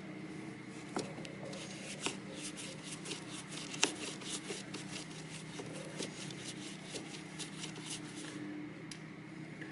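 Hose clamp on a coolant hose being tightened with a screwdriver: a rapid run of small clicks and rubbing as the clamp screw turns, with a few sharper clicks about one, two and four seconds in.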